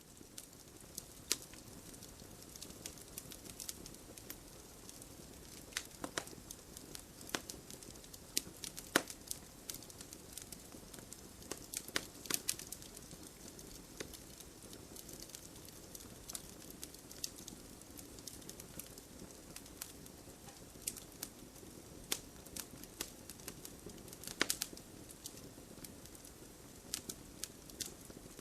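Wood fire crackling: a low steady hiss under irregular sharp snaps and pops, a few of them louder, around 9, 12 and 24 seconds in.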